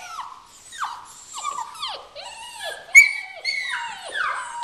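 Six-week-old rough collie puppies whining and crying, a string of short high cries that each fall in pitch, about two a second, with one louder, sharper cry about three seconds in.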